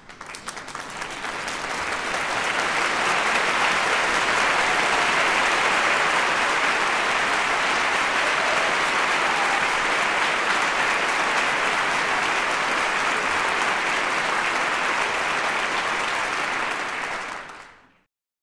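A large crowd applauding, swelling in over about two seconds, holding steady, then fading out near the end.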